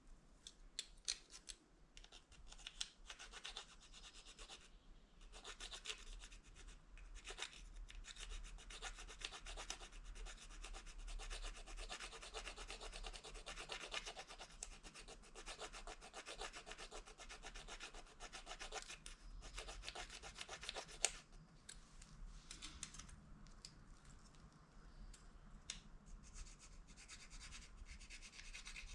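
Plastic fork prongs scraping rapidly back and forth along the edge of a plastic spoon, a dense rasping rub of quick strokes, to sharpen the spoon. About two-thirds of the way through there is a sharp click, and the scraping becomes sparser and lighter.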